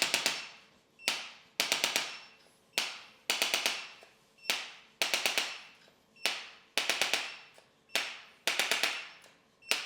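Background music with a sharp percussive beat: a single hit, then a quick roll of four or five hits, repeating about every second and a half over a faint held tone.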